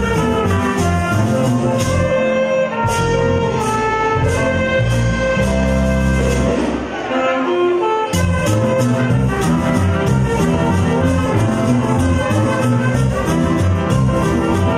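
Live band playing instrumental music: saxophones and brass lead over electric guitar, keyboard, bass and drums. A little past the middle the beat drops out under held bass notes for a couple of seconds, then the full band comes back in.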